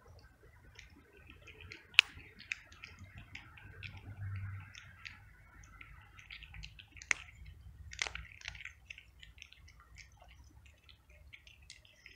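Young cat crunching dry kibble: an irregular scatter of small crisp clicks, with a few sharper cracks about 2, 7 and 8 seconds in.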